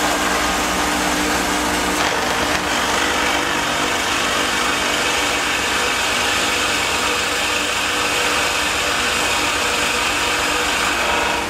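Shopsmith multipurpose machine running in drill-press mode, its motor humming steadily while the bit is fed down into a wooden board to bore a hole.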